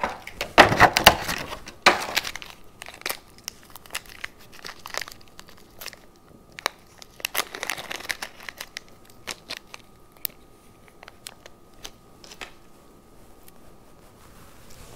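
Clear plastic blister packaging crinkling and crackling as it is handled and set aside, loudest in the first two seconds. After that come scattered light clicks and short plastic crinkles as small fan accessories are handled.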